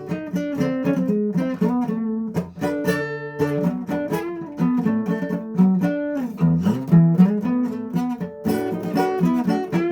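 Acoustic guitar being played: a steady run of picked notes and strummed chords, with a few notes sliding in pitch about two-thirds of the way through.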